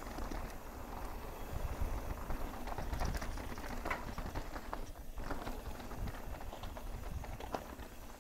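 Mountain bike riding fast down a rocky dirt trail: tyres crunching over rock, with many irregular knocks and rattles from the bike, and wind rumbling on the microphone.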